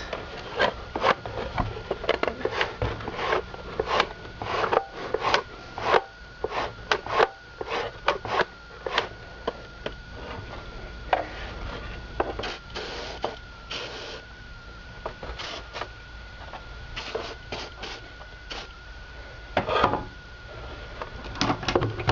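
Plastic housing of a power-extending tow mirror being pushed back and forth by hand along its slide track, giving repeated irregular scrapes and knocks. The track is stiff with salt corrosion and is being worked free with a spray lubricant.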